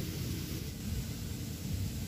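Steady low rumble with a hiss above it: outdoor background noise, with no distinct event.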